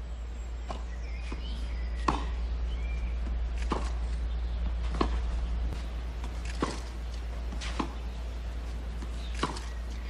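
Tennis ball struck by rackets on a clay court: a serve, then a baseline rally of about seven hits, each a sharp pop roughly one and a half seconds apart, over a low steady hum.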